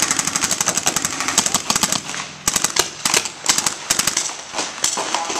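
Paintball markers firing in rapid strings of shots, with short pauses between the strings.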